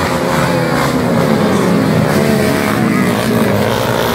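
A pack of small racing motorcycles passing close, several engines running at once, their pitches rising and falling over one another.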